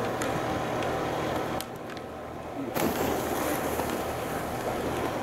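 Slalom skis scraping and carving over hard-packed snow as a racer turns through the gates, with a few sharp clicks. The scraping drops off briefly and comes back suddenly louder about three seconds in.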